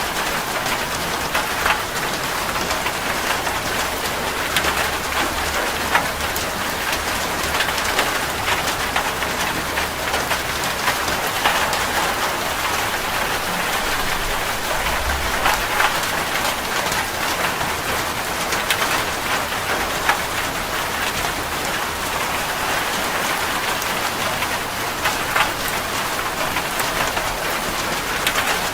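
Steady rain falling, a constant hiss dotted with sharp individual drips striking a surface.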